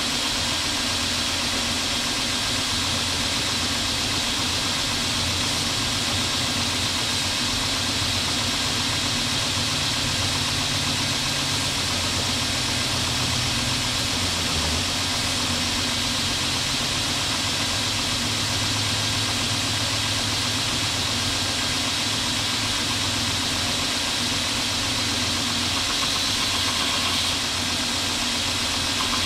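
KMG 2x72 belt grinder running steadily, its abrasive belt grinding a forged steel railroad-spike steak turner held against it. There is a continuous hiss with a low motor hum that shifts a little in pitch from time to time.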